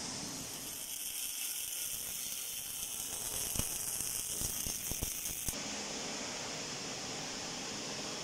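MIG welding arc on an automatic circular-seam welder, a steady high sizzling hiss with a few sharp crackles in its second half. It cuts off suddenly about five and a half seconds in, leaving a steady machine hum.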